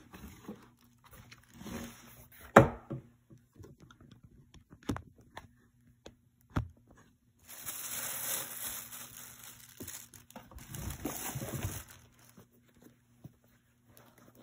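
A cardboard sneaker box being opened and its wrapping paper handled. There is a sharp knock about two and a half seconds in, the loudest sound, and a few lighter taps. Then come two spells of paper rustling and crinkling as the wrapping is pulled back from the shoes.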